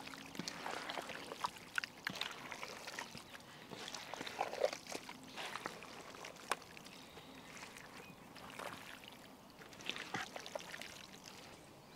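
A bare hand mixing raw chicken pieces in a thick yogurt marinade: soft, irregular wet squelches and squishes.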